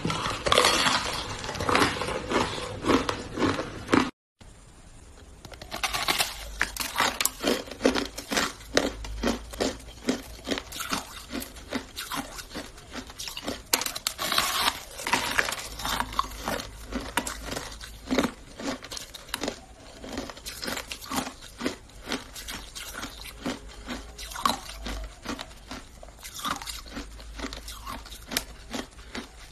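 A person biting and chewing frosty frozen ice close to the microphone: a run of crisp crunches, about two a second. About four seconds in there is a brief gap of silence.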